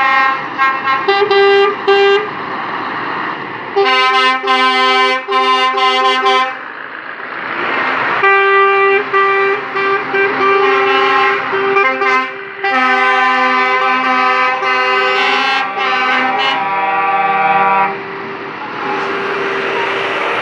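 Lorry air horns sounding again and again, several pitches at once, first in short toots and then in long blasts with brief breaks, over the diesel engines of the slowly passing trucks. The horns pause about seven seconds in and again near the end, leaving only the engine noise.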